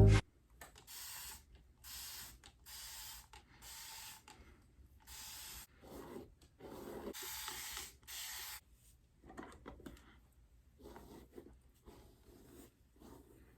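Hair spray being sprayed in a series of short hissing bursts, about ten over the first nine seconds, followed by fainter rustling.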